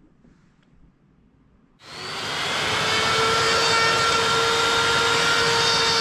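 Compact trim router starting up about two seconds in, rising quickly to a steady high whine as it works the surface of an alder root slab.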